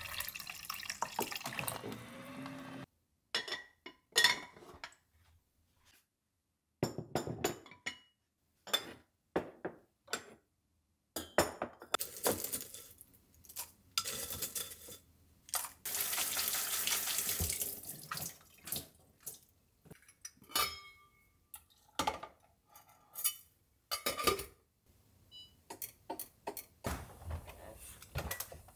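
Kitchen work sounds: water from a countertop dispenser pouring into a bowl of soaking grains at the start, then a string of short clinks and knocks of glass jars, lids and dishes. A longer stretch of water pouring comes near the middle.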